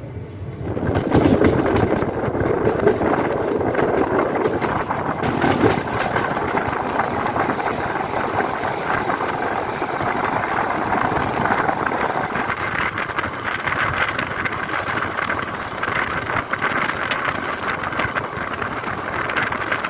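Running noise of a moving passenger train, heard from the coach: a steady rumble with many short rattles and clicks from the wheels on the track.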